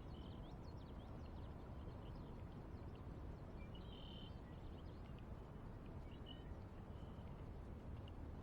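Faint birds chirping and twittering in short scattered calls over a low steady rumble.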